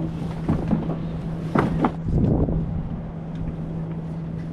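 A small outboard motor on an inflatable dinghy runs steadily at one pitch while towing on an anchor line. A few knocks and rustles of rope being handled at a deck winch come between about half a second and two and a half seconds in.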